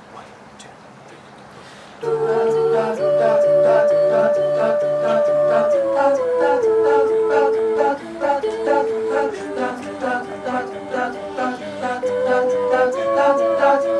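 A cappella group singing a wordless chordal introduction, the voices holding and shifting chords over a steady pulsing rhythm, entering about two seconds in.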